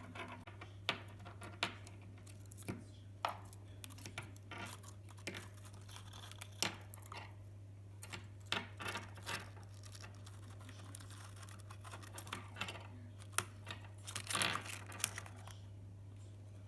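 Cockatiels at play: irregular clicks, taps and short tearing, crinkling rustles, with a denser patch of rustling about fourteen seconds in, over a steady low hum.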